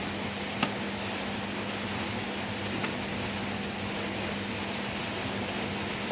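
A seal driver tapping the new inner bush and oil seal into a Ducati 749S front fork: one sharp metal click a little after the start and a few faint ticks, over a steady hum and hiss.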